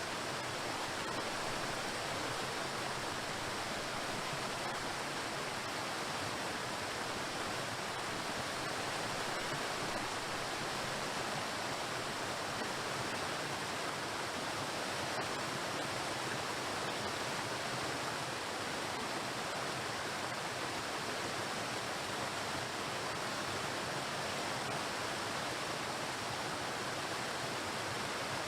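Waterfall: water pouring and crashing onto rocks in a steady, even rush.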